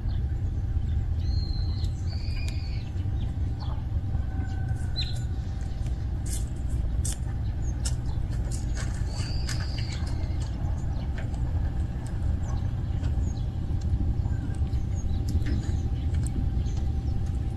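Outdoor ambience: a steady low rumble with a faint steady hum, and a few short bird chirps scattered through it.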